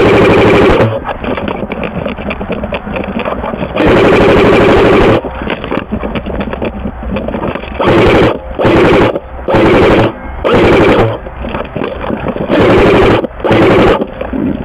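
Airsoft gun firing full-auto bursts: eight rapid rattling strings of shots, each half a second to a second and a half long.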